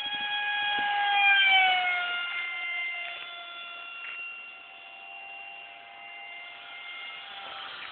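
Radio-controlled model jet whining as it flies past overhead. The high engine tone gets loudest about a second and a half in, drops in pitch as the jet goes by, then fades as it flies away.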